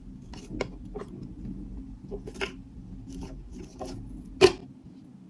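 Faint handling noises: light rustles and scattered small clicks, with one sharper click about four and a half seconds in.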